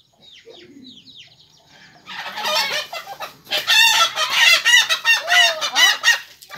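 Chicks and a hen calling: faint, quickly falling peeps at first, then from about two seconds in a loud, dense run of rapid chicken calls lasting about four seconds.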